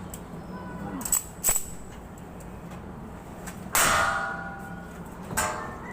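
Vehicle brakes squealing: a loud, brief squeal about four seconds in and a shorter one near the end, after two sharp clicks in the first second and a half.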